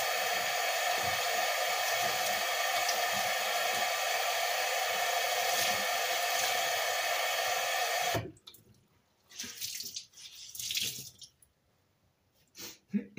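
Kitchen mixer tap running into the sink as hands and a cloth are rinsed under the stream, a steady rush of water. It cuts off abruptly about eight seconds in, and a few brief soft sounds follow.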